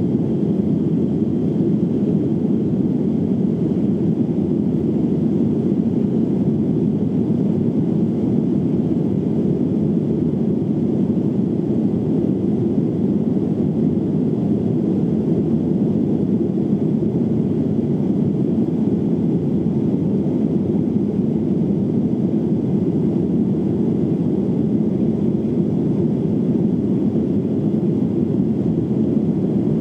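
Boeing 737-800 airliner heard from inside the passenger cabin in flight: a steady, loud, low rush of engine and airflow noise.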